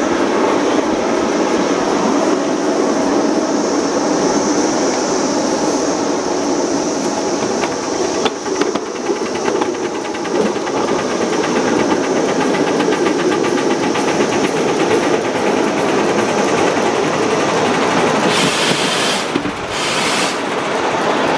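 Ride-on miniature live-steam train running along its track: a steady rumble and clatter of small wheels on the rails, with rapid regular clicking over the middle stretch. Two short hissing bursts come near the end.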